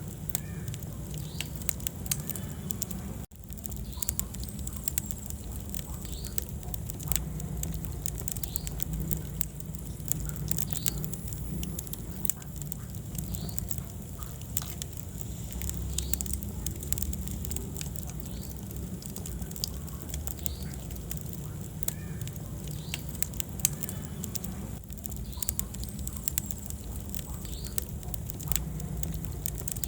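Wood fire burning in a fireplace: a steady low rumble of flames with scattered sharp crackles and pops. The sound drops out for an instant about three seconds in.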